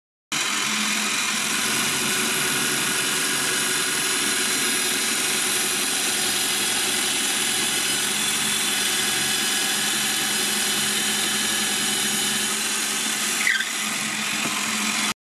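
Parkside PTBM 710 A1 bench drill press running, its bit boring into a block of wood with a steady motor-and-cutting noise. There is a brief squeak about a second before the sound cuts off suddenly.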